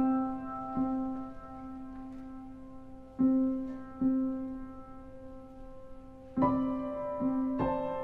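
Slow piano music as background score: single notes struck every second or two, a low note repeating under held higher notes.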